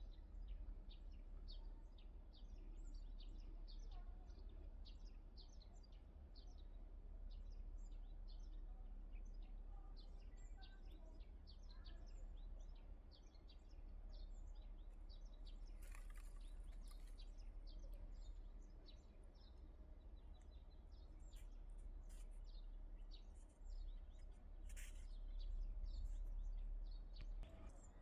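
Small birds chirping, many short high chirps throughout, over a steady low rumble. Two brief louder noises break in, about halfway and again near the end.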